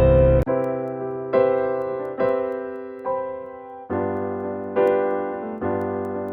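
Slow down-tempo R&B lounge instrumental: sustained keyboard chords, each struck and left to fade, changing about once a second. The low bass drops out about half a second in and comes back about four seconds in.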